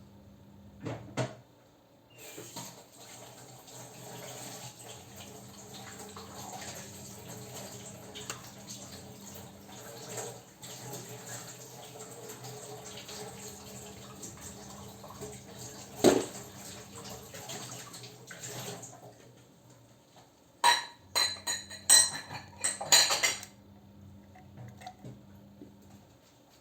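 Hard plastic parts of a Braun children's electric toothbrush being pried and handled during disassembly. A long stretch of scraping and rustling carries one sharp snap partway through, then comes a quick run of sharp clicks and clacks.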